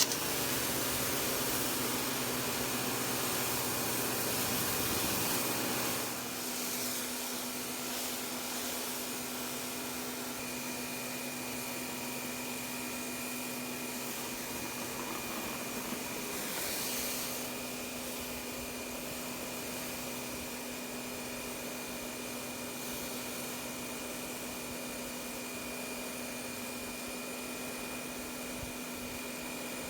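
Kärcher K 2 electric pressure washer running, a steady whir with a hiss and a faint high whine. It cuts in suddenly at the start and drops a little in level about six seconds in.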